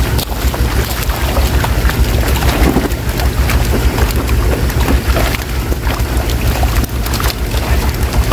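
Fish thrashing and splashing in a net drawn into shallow water, with scattered sharp splashes as fish are grabbed and tossed into plastic baskets, over a steady low rumble.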